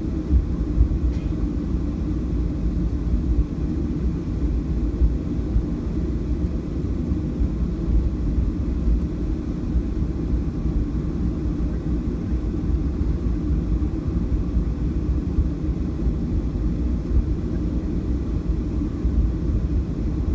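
Boeing 737-700 cabin noise while taxiing: the CFM56-7B jet engines at low taxi thrust, heard through the fuselage as a steady low rumble.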